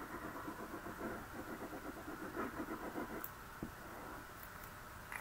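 Faint, fast scratchy rasping as the nozzle of a liquid glue bottle is drawn in squiggles across cardstock. It stops about three seconds in, followed by a single light click.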